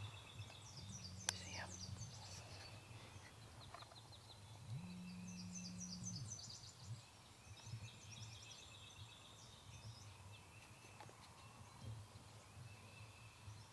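Faint songbirds chirping and trilling over quiet outdoor ambience, with a single sharp click about a second in and two brief low hums.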